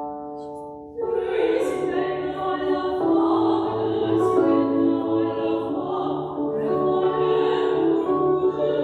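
Operatic singing accompanied on a digital stage piano. A held keyboard chord fades for about a second, then the voice enters with vibrato and carries a sustained classical melody over the keyboard.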